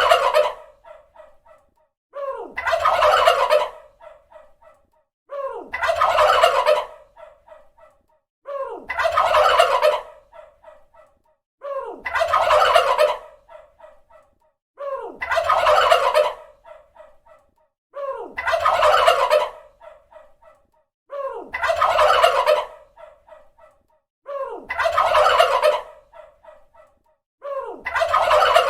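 Turkey gobbling: the same gobble repeats about every three seconds. Each is a loud call that trails off into a string of short, fading notes.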